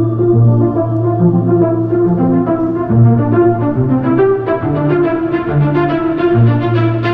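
Soundtrack music of a promotional video: held low notes, with a quick repeating rhythmic figure that comes in about three seconds in and builds.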